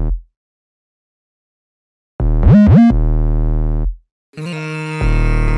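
Synthesizer intro of a hip-hop beat: held, buzzy bass notes broken by two short silences, with quick upward pitch sweeps laid over the second note and, several at once, near the end.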